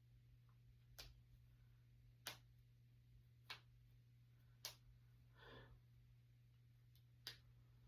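Finger knuckles being cracked: five sharp, short pops roughly a second apart, with a longer pause before the last one, over a faint steady low hum.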